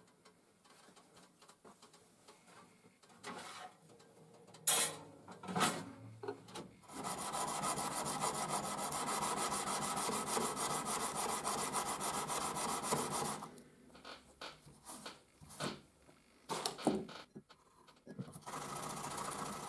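Hand-rubbing a steel knife blade clamped in a vise with an abrasive: a steady rasping rub of rapid strokes for several seconds. The rubbing stops for a few seconds of scattered knocks and clicks of handling, then starts again near the end.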